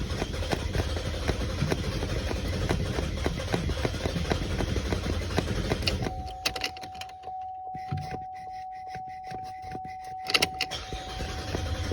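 A GMC Acadia's engine noise, rattling and humming, cuts off about six seconds in. A steady electronic warning tone from the car then holds for about five seconds, with a sharp click near its end, and the engine noise starts again at the very end.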